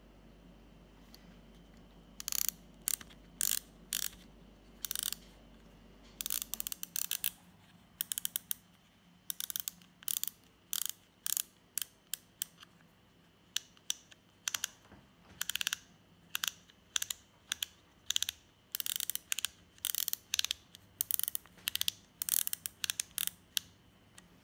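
A spring-loaded machined metal mechanism clicking as its central shaft is turned by hand: an irregular series of sharp clicks, roughly two a second, starting about two seconds in.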